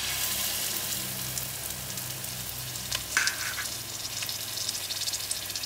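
Saltfish fritter batter dropped into very hot oil, sizzling loudly from the moment it goes in, with crackling and spitting throughout. A short clink about three seconds in.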